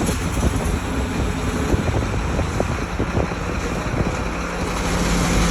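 A heavy engine running steadily with wind noise on the microphone; a steady low hum joins in about four seconds in.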